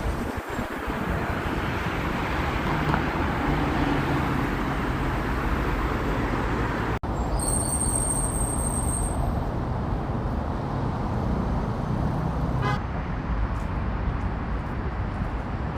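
Wind blowing across the microphone in a steady rush, with a brief dropout about seven seconds in.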